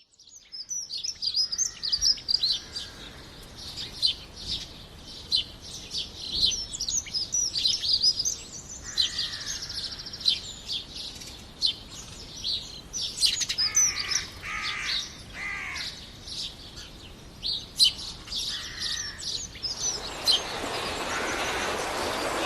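Several songbirds chirping and singing, a busy mix of short high chirps and trills with a few lower warbled phrases in between. Near the end a steady rushing noise rises underneath.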